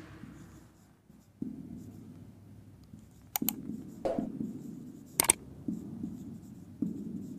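Marker pen writing on a whiteboard, its strokes scratching in short spells, with a few sharp clicks around the middle.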